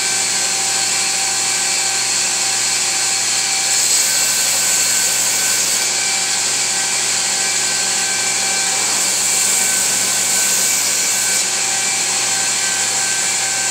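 Belt grinder running steadily: an even motor whine with a dense hiss from the moving abrasive belt. The high hiss grows brighter for about two seconds a few seconds in, and again for a couple of seconds past the middle.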